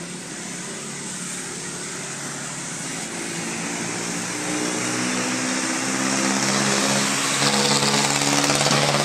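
A Volvo B7R diesel coach's engine running as it pulls past, with tyre hiss on the wet road. Both grow steadily louder, loudest near the end.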